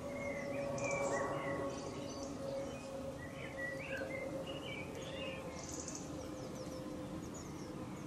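Small garden songbirds chirping and calling: short sliding chirps, most of them a few seconds in, and small groups of very high, thin notes, over a faint steady hum.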